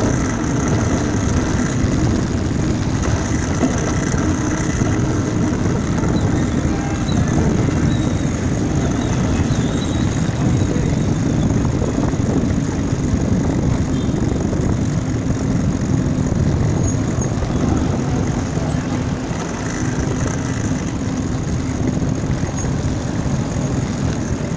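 Steady city street traffic: a continuous low rumble of car and motorbike engines running on the road.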